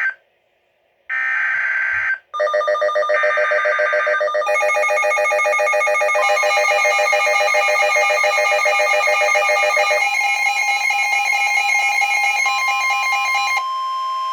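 Emergency Alert System signalling: buzzy digital header bursts about a second long, separated by a second of silence, then a long electronic alert tone. The alert tone is several steady pitches sounding together and shifts to new pitches a few times over about twelve seconds.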